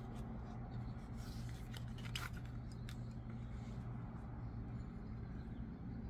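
Fixed-blade knife drawn from its leather sheath: a short rub and scrape of the blade about two seconds in, with small handling clicks, over a steady low hum.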